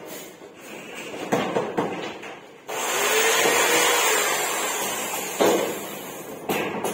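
Corded electric drill running under load in two bursts: the first starts suddenly about two and a half seconds in and runs for about two and a half seconds, the second is shorter, near the end. Before it, a few light clicks and knocks of metal furring being handled.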